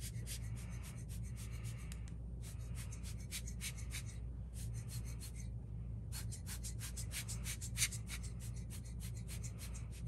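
Rubber air blower bulb squeezed by hand again and again, puffing air in rapid short hisses of about four or five a second, with brief pauses about two seconds and five and a half seconds in. A steady low hum runs underneath.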